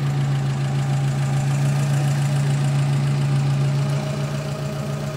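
An engine running at a steady idle: a constant low hum that does not change.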